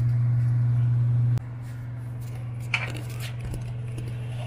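A steady low hum that is loud at first and drops sharply about a second and a half in, then continues more quietly. Near the middle there is a brief click and a scrape of tongs in the wok.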